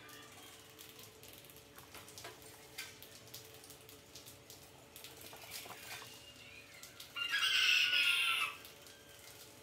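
Rats scrabbling on a wire-mesh cage trap, with light scattered clicks and scratches. About seven seconds in comes one loud, shrill squeal lasting just over a second, falling slightly in pitch.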